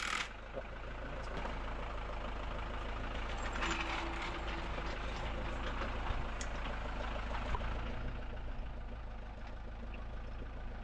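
A steady low mechanical hum, like a motor running, under scattered faint clicks and light knocks.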